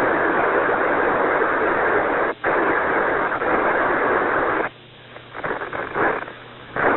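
Radio static hiss on the Apollo 11 air-to-ground communications loop, with no voice on it. It cuts out for an instant about two and a half seconds in, then drops away about two-thirds through, with short bursts of hiss breaking back in before it returns near the end.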